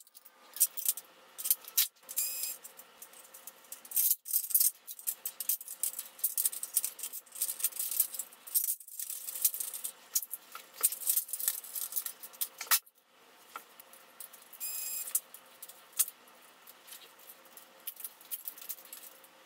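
Sped-up clatter of hand tools and small plastic and metal printer/scanner parts being taken apart: dense, rapid clicks and rattles with a few short high chirps.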